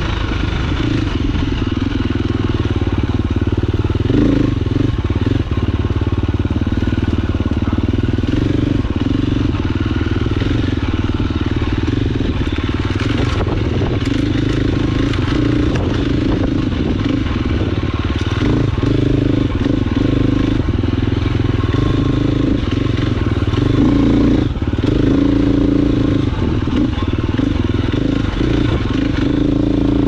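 KTM 350 XC-F dirt bike's four-stroke single-cylinder engine running steadily under way on trail, its pitch shifting up and down with the throttle. Scattered short clicks and knocks run through it.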